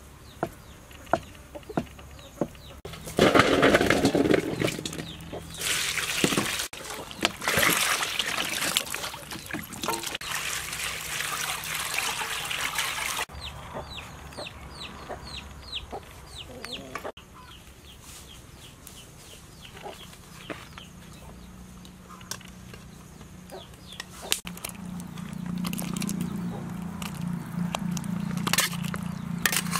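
Chickens clucking and a rooster crowing, mixed with sharp knife taps on a wooden chopping board in the first few seconds.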